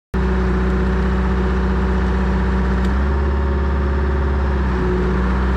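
Diesel engine of an old P&H crawler excavator running steadily while the machine travels on its tracks, heard close up from on the machine. The sound cuts in suddenly just after the start.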